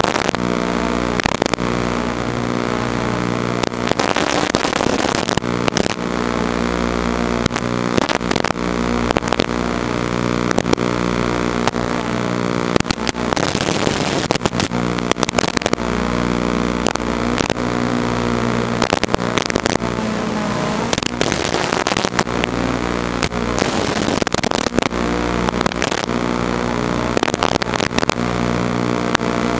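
FPV quadcopter in flight: a steady, loud buzz with frequent short crackles and pops throughout.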